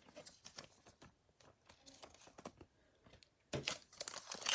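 Faint, scattered light clicks and taps of trading cards being handled, then the crinkle of a foil-wrapped card pack being picked up and handled, starting about three and a half seconds in.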